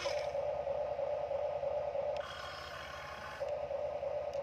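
Electric motors of a Huina RC excavator whining as the boom lifts and the bucket curls; the steady hum gives way to a higher whine about two seconds in, then returns a second later as a different motor takes over.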